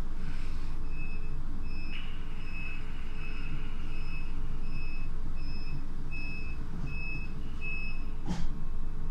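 A series of high electronic warning beeps, about one and a half a second for some seven seconds, over the steady low rumble of a train, ending with a single knock.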